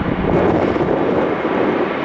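Jet engines of a Boeing 737 climbing out after takeoff: a steady, loud rushing jet noise.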